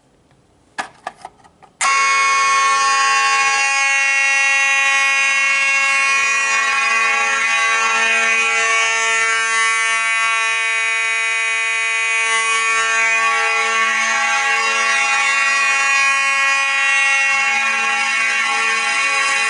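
A few sharp clicks as a BG-10 fire alarm pull station is pulled. About two seconds in, the fire alarm system's notification appliances come on and sound steadily and continuously: the system going into alarm from the manual pull.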